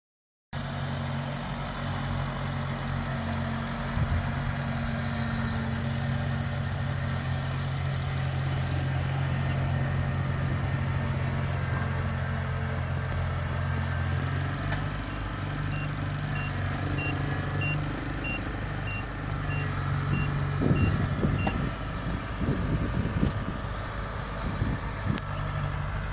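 Kubota DC-70 Plus combine harvester's diesel engine running steadily, its note changing about halfway through. A high beep repeats evenly for several seconds, and there is some clanking near the end.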